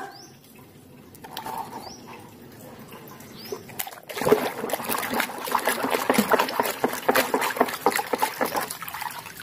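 Water sloshing and splashing in a plastic basin as a muddy plastic toy vehicle is scrubbed by hand underwater. Faint at first, it gets louder and busier about four seconds in.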